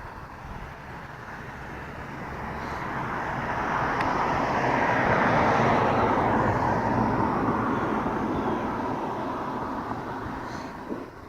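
Engine noise of a passing vehicle, swelling gradually to a peak about five or six seconds in and then fading away.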